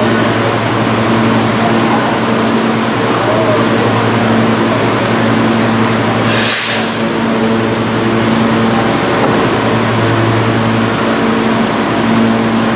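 New York City subway train standing at the platform, its equipment giving a loud, steady hum of several tones, with one short, sharp hiss of air about six and a half seconds in.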